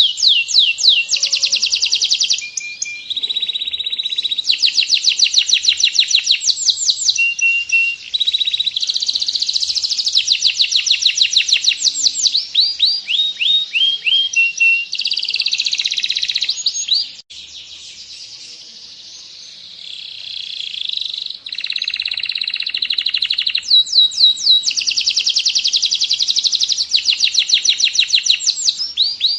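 Canary singing a long, fast trilling song of rapidly repeated sweeping notes, with a softer stretch a little past the middle.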